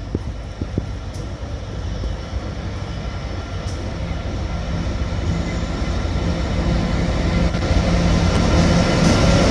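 Class 66 diesel-electric locomotive's two-stroke V12 engine running as it hauls a freight train towards the listener, growing steadily louder as it draws near; a deeper engine note comes in about four seconds in.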